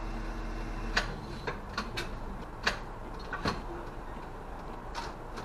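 A stationary city bus's idling engine hum drops away about a second in, leaving a low steady cabin hum and a handful of sharp, irregularly spaced clicks and ticks.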